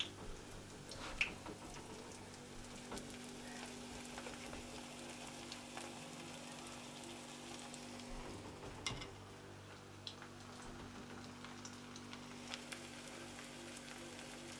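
Faint steady hiss over a low steady hum, broken by a few light clicks and knocks.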